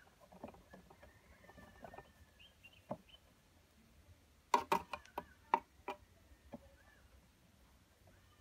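A quick cluster of sharp clicks and taps about halfway through, after a few scattered faint clicks and thin, faint high chirps.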